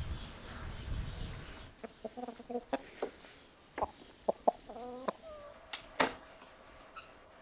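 Chickens clucking in a series of short calls, followed by a couple of sharp clicks.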